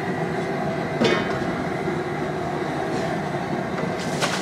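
A plastic bucket of liquid being handled: its handle knocks about a second in and again near the end, over a steady rushing background noise.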